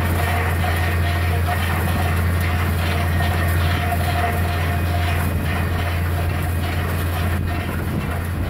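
Truck-mounted water-well drilling rig running steadily while it drills: a constant low engine drone with a steady mid-pitched whine above it and a rough noisy wash.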